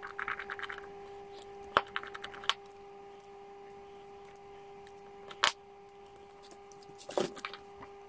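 Sharp small clicks and ticks of a precision screwdriver and tiny screws against a phone's plastic frame as the back screws are taken out, about four clear clicks, over a steady faint hum.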